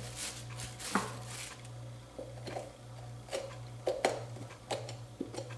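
Scattered scrapes and clicks of a bent tin-can lid and fingers working seeds and pulp out of a small pie pumpkin through a hole in its top, with seeds dropping onto a plastic bag. A steady low hum runs underneath.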